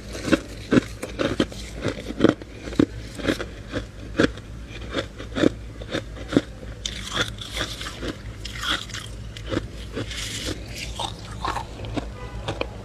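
Freezer frost being bitten and chewed close to the microphone: a steady run of crisp crunches, about two a second.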